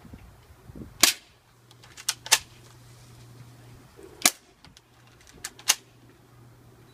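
Airsoft Colt 1911 replica pistol firing BBs: a series of sharp snapping shots, the loudest about a second in, with more at irregular intervals, some in quick pairs.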